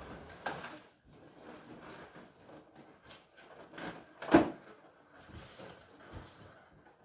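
Inflated latex balloons being handled: rubber rubbing and bumping in irregular short bursts, with one louder bump about four and a half seconds in.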